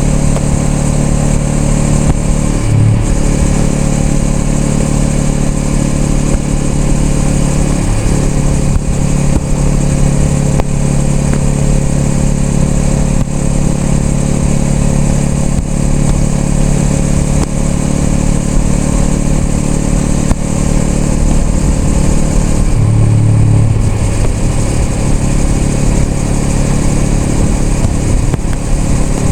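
Honda Rebel 500's parallel-twin engine running steadily under way, with a brief change in the engine note about three seconds in and another, longer one around twenty-three seconds in.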